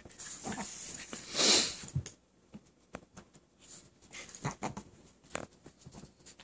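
A Chihuahua and a mini husky play-fighting at close range: scattered short scuffling noises with quiet gaps between them. The loudest is a breathy rush about a second and a half in.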